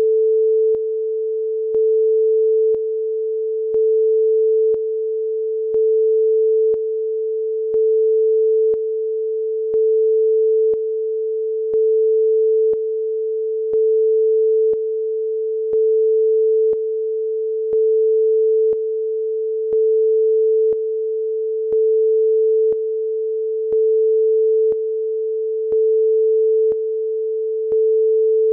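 Steady pure test tone, mid-pitched, a little below 500 Hz, stepping between a louder and a softer level about once a second, with a faint click at each change.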